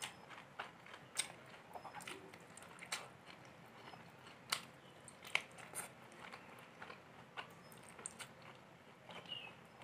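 Close-miked sounds of eating pulao rice and chicken curry by hand: soft wet chewing with scattered sharp lip smacks and clicks.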